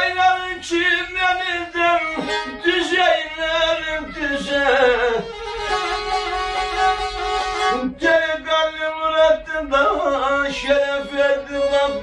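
Turkish Black Sea folk music with a bowed kemençe carrying the melody, including one long held note midway through.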